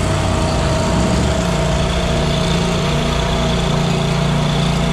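Commercial stand-on lawn mower's engine running steadily, with a slight change in engine speed about a second and a half in.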